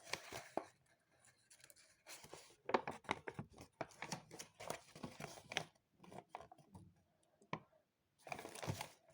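Packaging being handled and opened: faint scattered rustling, crinkling and small clicks, with short quiet pauses between bursts of handling.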